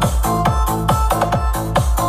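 Electronic dance music with a fast, steady kick-drum beat under a high synth melody.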